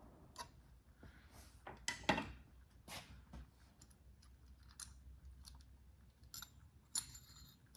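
Scattered light metallic clicks and short scrapes of hand tools and valvetrain parts (rocker arm, pushrod) being handled on the engine. The loudest scrape comes about two seconds in, and a quick cluster of clicks comes near the end.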